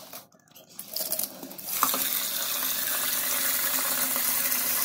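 Tap water running in a steady stream into a metal pot of rice in a sink, starting about two seconds in after a few knocks.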